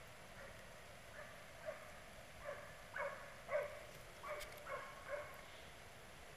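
Hunting dogs baying faintly in the distance: a string of about nine short, irregular barks.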